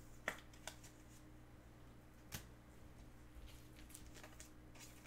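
Faint, scattered light clicks and rustles of trading cards being handled, over a low steady hum.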